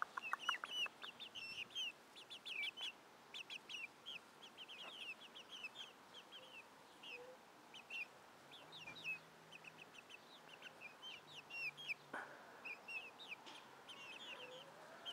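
Young chickens peeping: a steady stream of short, high chirps, several a second, many dropping in pitch.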